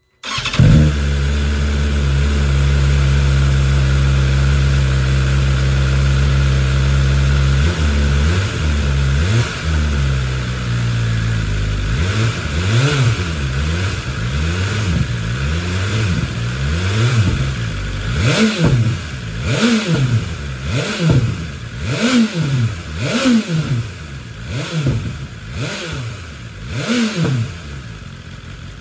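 BMW S1000RR inline-four engine breathing through an Akrapovic slip-on muffler. It starts about half a second in and holds a high idle for several seconds, then settles lower. From there it is revved in a string of quick throttle blips, each rising and falling, about one a second.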